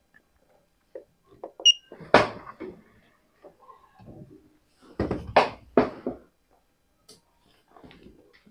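A single short, high electronic beep from the automatic transfer switch's panel buzzer as a menu button is pressed, amid soft clicks, knocks and rubbing of fingers handling the unit, the loudest about two seconds in and again around five to six seconds in.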